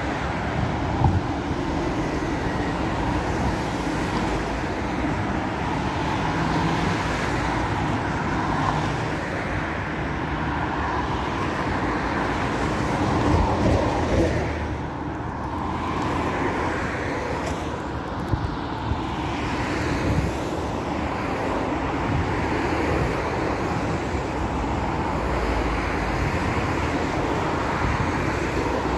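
Steady outdoor noise of road traffic, with a few brief knocks or clicks.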